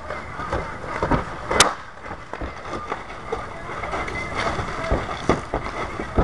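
Roof shingle tear-off: irregular knocking, scraping and clatter of prying tools and old shingles being ripped up, with a sharp crack about a second and a half in.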